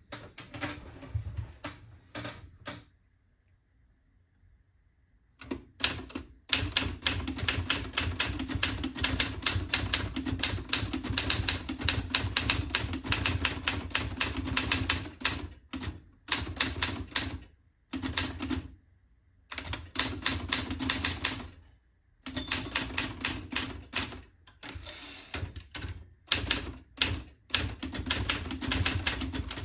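1958 Adler Universal manual typewriter being typed on: fast runs of sharp key strikes, broken by short pauses. A few strikes come at the start, then a quiet gap of about two seconds before steady typing resumes.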